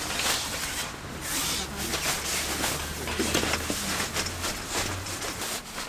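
Folding camp cots being carried and set down on a tent floor: fabric rustling and light knocks of the cot frames, heard as many short scuffs and taps.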